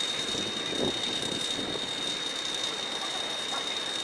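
Combine harvester running steadily, a constant machine noise with a high, unbroken whine over it.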